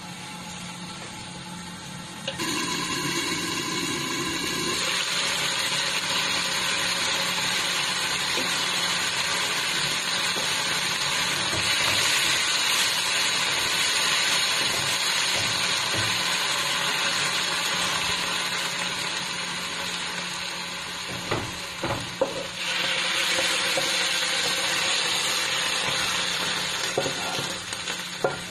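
Sliced bell peppers and mushrooms sizzling in a wok as they are stirred with a wooden spatula. The sizzle starts about two seconds in, eases briefly past the middle with a few knocks of the spatula on the pan, then picks up again.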